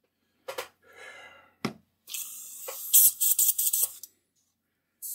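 Gravity-feed airbrush blowing compressed air onto paper to clear water out of it before painting: a few short blasts, then a longer hiss broken into quick spurts, and another hiss starting near the end.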